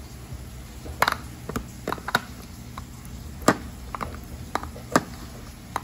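Wooden spoon scooping wet canned dog food, knocking and scraping against the metal tin and the bowl in a string of sharp, irregular taps, about eight in all.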